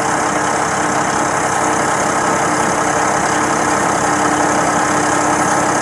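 Engine of a large piece of construction equipment left running at idle, a steady unchanging drone with a constant hum in it, loud enough to drown out conversation.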